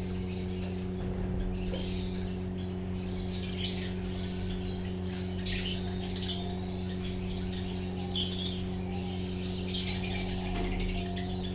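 Small cage birds chirping and twittering in short, scattered calls, busiest about halfway through and near the end, with one sharp call a little after that. A steady low hum runs underneath.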